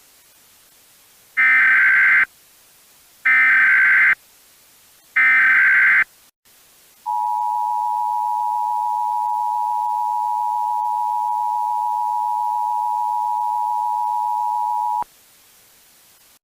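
Emergency Alert System tones: three short bursts of SAME header data, each about a second long, then the steady two-tone EAS attention signal held for about eight seconds before it cuts off.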